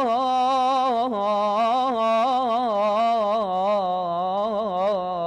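A solo male voice singing an Arabic mawwal, drawing one syllable out into a long melisma with quick ornamental turns and wavering pitch.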